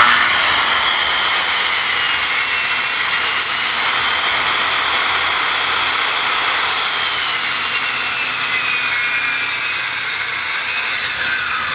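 Handheld circular saw running along a guide rail, cutting through plywood. It starts suddenly and runs steadily, its whine dipping slightly in pitch partway through the cut.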